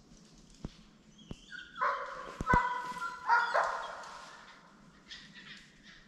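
Hunting dog barking on a hare's trail: three drawn-out, high barks in quick succession about two seconds in, each trailing off. A few sharp clicks come before them.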